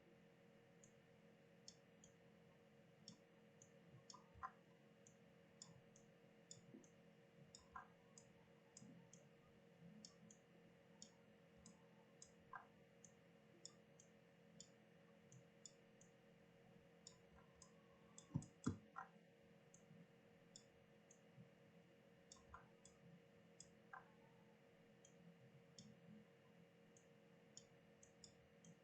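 Faint scattered clicks from computer input during digital sculpting, with two louder clicks close together about eighteen seconds in, over a low steady hum.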